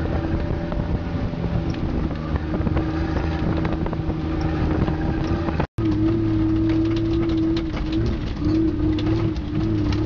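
Off-road vehicle's engine running under load on a rough dirt track, with knocks and rattles from the bumpy ground. The sound cuts out abruptly about halfway through, and afterwards the engine note wavers up and down.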